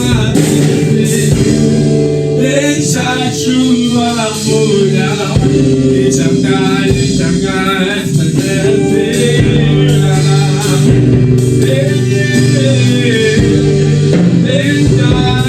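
Worship song: a band plays while a voice sings, with held notes and a steady accompaniment.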